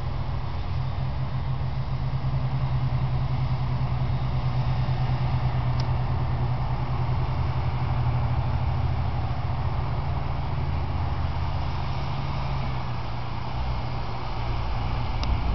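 Diesel engine of a B-triple road train prime mover pulling away at low speed: a steady low drone with a slight dip in level a little before the end.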